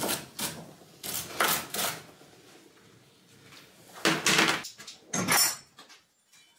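Several short clunks and rattles of objects being handled and set down, in four separate bursts with a quiet stretch in the middle.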